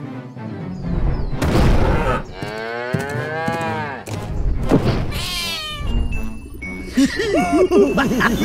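Cartoon cow mooing: one long, arching call about two seconds in, just after a short burst of noise. A higher-pitched animal cry follows about five seconds in, with background music.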